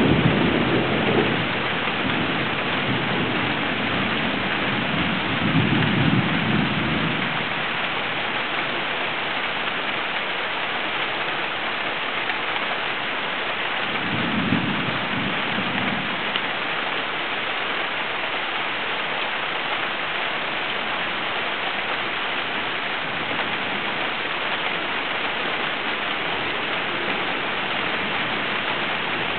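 Heavy rain falling steadily through a thunderstorm. Low rumbles of thunder come at the start, about six seconds in and again about fifteen seconds in.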